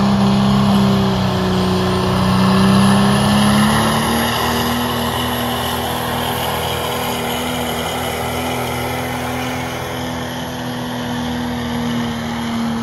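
Pickup truck engine running hard under load during a truck pull, dragging a weight-transfer sled. Its steady, loud note climbs a little about three to four seconds in, then holds.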